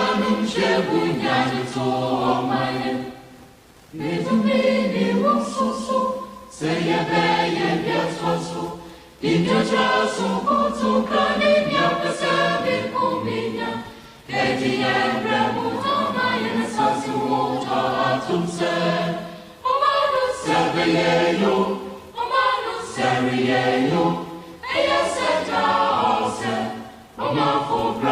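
Choir singing in phrases of a few seconds each, with short breaks between them.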